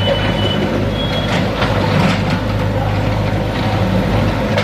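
Heavy diesel engine running steadily with a low hum, and a short high-pitched beep about a second in.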